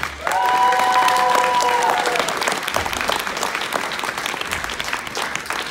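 Audience applauding, the clapping gradually thinning out. A single held tone, about two seconds long, sounds over the applause near the start.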